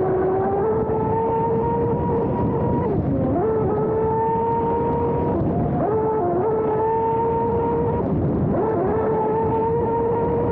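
Brushless electric outboard motor of a radio-controlled F1 racing boat whining at speed, heard close up from on board, over the rush of water. The whine dips in pitch and climbs back a few times.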